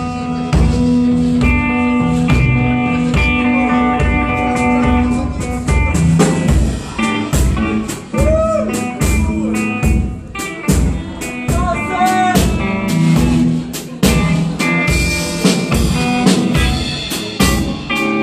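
Live blues instrumental: an electric guitar plays sustained notes over a drum kit keeping a steady beat. Around eight and twelve seconds in, a few notes bend up and down in pitch.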